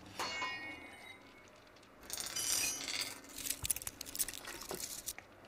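Steel rebar rod giving a short metallic ring just after the start, then a run of light clinks and rattles from about two seconds in.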